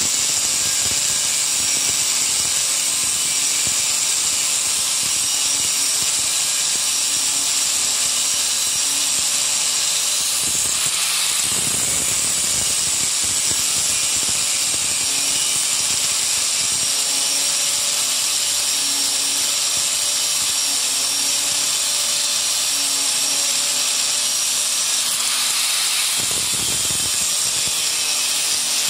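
Angle grinder with a thin abrasive cut-off disc cutting through a round steel bar, a loud, steady hissing grind of disc on metal. The sound changes briefly twice, about 11 and 26 seconds in.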